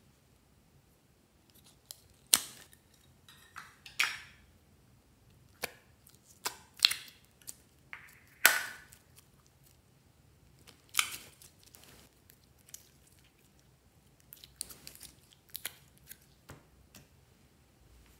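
Clear green glitter slime being pulled and poured out of a plastic container into a glass dish: about a dozen irregular sticky pops and crackles, a few of them loud, with a quieter run of small pops near the end.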